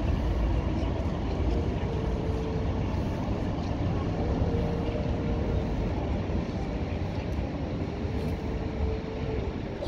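A modern low-floor electric tram moving off along the tracks, a steady low rumble with a faint hum that comes and goes a few times as it draws away.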